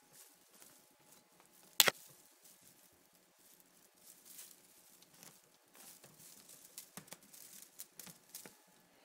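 Kittens playing at a carpeted cat tree: faint scattered rustling and scratching of paws and claws, with one sharp knock about two seconds in.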